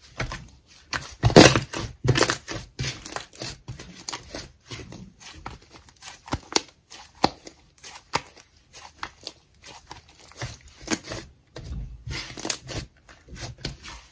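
Thick white slime being stretched and pulled apart by hand, with irregular crackles and small pops as it tears and folds; the loudest run of crackles comes about a second and a half in.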